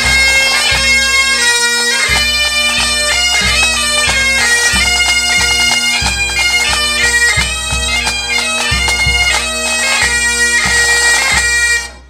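Pipe band playing: Great Highland bagpipes sound a tune over their steady drone, with a bass drum beating underneath. The band stops together near the end.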